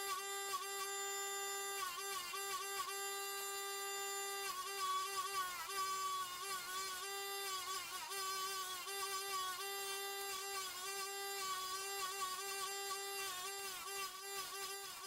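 Small power tool motor running with a steady high whine, its pitch dipping briefly and recovering many times over.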